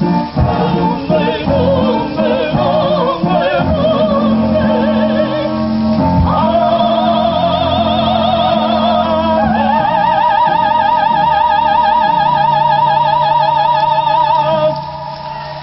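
A man and a woman singing a duet into microphones over instrumental accompaniment, building to long held notes with wide vibrato, the two voices together, that end near the close.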